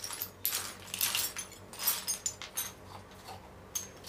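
Rusty steel bolts, nuts and washers clinking and jangling against each other as hands rummage through a loose pile of scrap hardware. A busy run of jingles eases off after about three seconds, with more clinks near the end.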